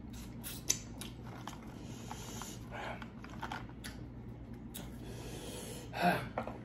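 Quiet eating and handling sounds: chewing, with small clicks and rustles from a plastic cup and food being handled. A short breathy mouth sound comes near the end.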